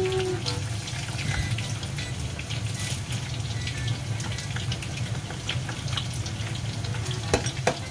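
Water poured from a plastic measuring jug into a bowl of grated daikon and dipping sauce, over a steady low hum and scattered light crackling.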